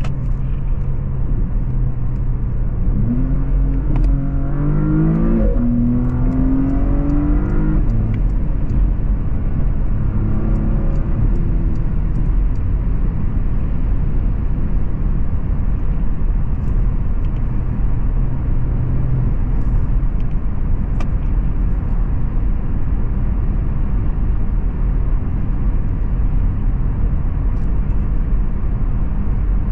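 Porsche Panamera 4S's 2.9-litre twin-turbo V6 with sport exhaust, heard from inside the cabin under hard acceleration at motorway speed: the engine note jumps up about three seconds in, climbs, steps down at an upshift and climbs again, then drops back after about eight seconds. After that a steady road and tyre roar covers the engine while the car cruises.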